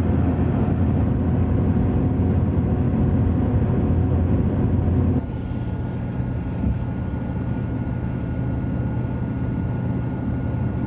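Steady low road and wind rumble heard inside a moving car. About five seconds in it drops abruptly to a quieter steady hum with a faint high tone.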